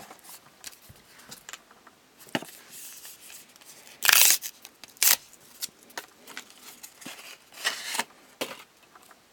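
Magic: The Gathering booster pack's foil wrapper being handled and torn open, with crinkling and short rips. The loudest tear comes about four seconds in, with another sharp rip a second later and more crinkling near the end.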